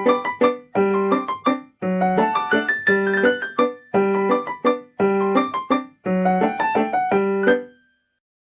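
Stock Meizu Flyme AiOS 11 phone tone: an electric-piano melody of short chord phrases repeating about once a second, stopping just before the end.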